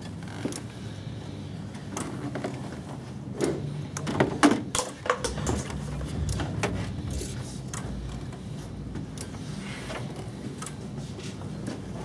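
Scattered light clicks and knocks as hands move wiring and parts in a car's engine bay, over a steady low hum.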